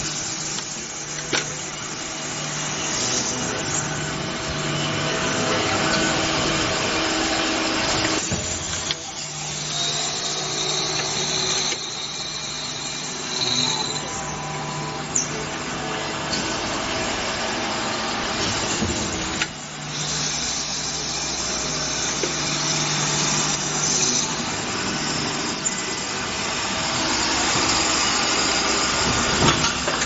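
JZ-2.3B automatic padlock-shell drilling combination machine running: a steady motor and spindle hum with a hiss of noise over it, a high whine for a few seconds near the middle, and a few sharp clicks of the mechanism.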